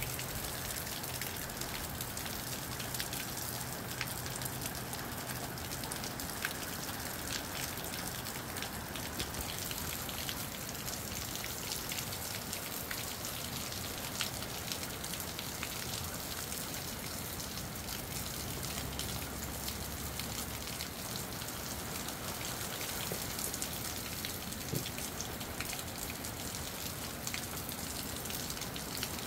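Moderate rain falling steadily, with many individual drops ticking on nearby surfaces.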